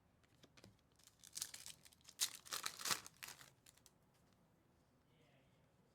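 Faint crinkling and rustling of trading cards and their foil pack wrapper being handled, in a short flurry from about one second in to nearly four seconds.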